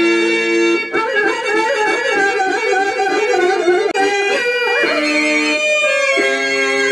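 Harmonium-style reed music accompanying a Telugu stage drama verse: steady held notes at the start and again in the second half, with a wavering, bending melodic line in between.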